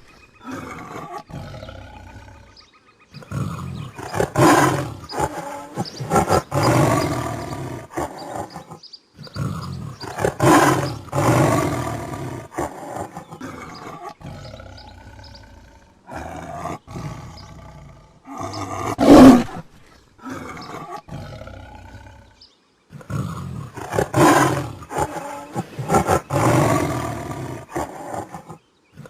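Tiger roaring repeatedly in bouts a few seconds long, with short pauses between them; one short, very loud roar comes about two-thirds of the way through.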